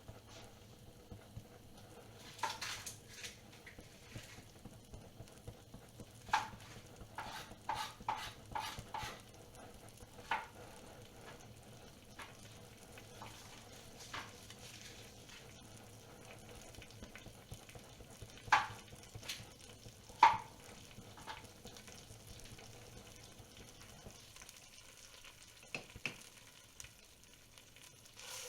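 Kitchen cooking sounds: scattered sharp clinks and knocks of utensils against a pot, over a faint steady background. The loudest two come near the end.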